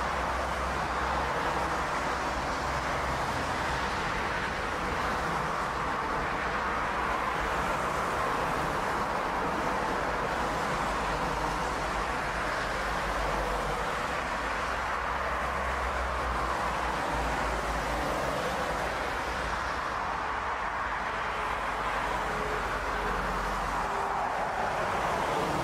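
Airbus A380's four jet engines running in a steady, unbroken rushing noise as the airliner lands.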